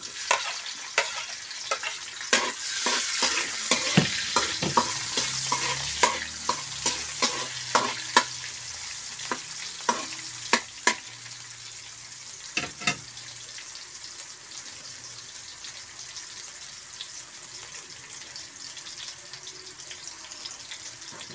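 Garlic and onion sautéing in hot oil in a pan, sizzling steadily. A spatula knocks and scrapes against the pan many times during the first dozen or so seconds, then only the sizzle goes on.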